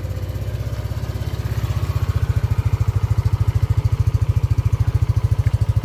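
Yamaha NVX 155 scooter's single-cylinder four-stroke engine idling steadily through its stock exhaust, just after a push-button start; a soft, even, rapid exhaust pulse that grows more distinct about two seconds in.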